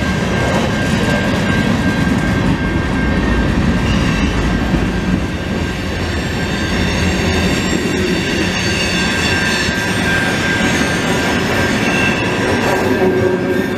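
Canadian National freight train's cars rolling past at a level crossing, a steady loud rumble and clatter of steel wheels on the rails, with a thin steady high tone running through it.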